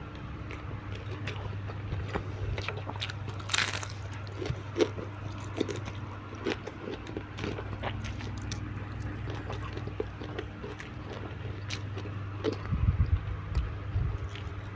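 A person biting, chewing and crunching food, with many short crisp clicks and a louder crunch about three and a half seconds in. A steady low hum runs underneath, and a few heavier low thumps come near the end.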